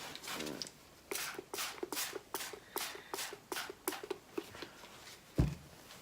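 Hand-pump spray bottle misting water, a quick run of about a dozen squirts, two to three a second, each a short hiss with a trigger click. Near the end, one louder low thump.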